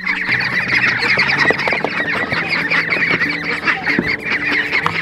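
A group of ducklings calling together in a dense, continuous chorus of short high-pitched peeps and squeaky honks, with a couple of brief knocks mixed in.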